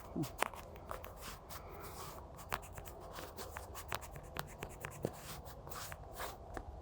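Irregular light clicks and scrapes of fingers handling and tapping a phone while it records, several a second and uneven.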